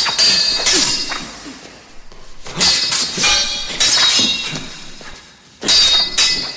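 Sword fight sound effect: metal blades clashing, a string of sharp strikes that each leave a ringing metallic clang. The strikes come in quick clusters, with a quieter lull around two seconds in and another just before the last loud group.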